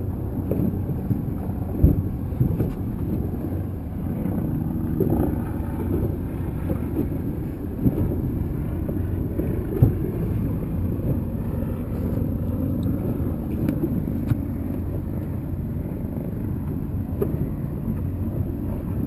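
A motorboat's engine running steadily with a low hum, with a few sharp knocks, the loudest about two seconds in and about ten seconds in.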